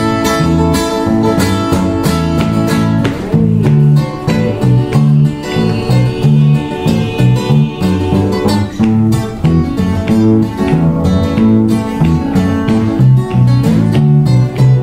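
Two acoustic guitars playing an instrumental break with no singing: a steady rhythm of alternating bass notes, with single notes picked higher up over it.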